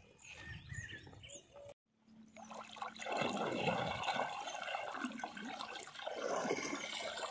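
Small birds chirping faintly, then, after a brief break, water splashing and sloshing loudly as hands churn through shallow water, tearing up the algae and water weed from the bottom to clear a spot for a fishing net.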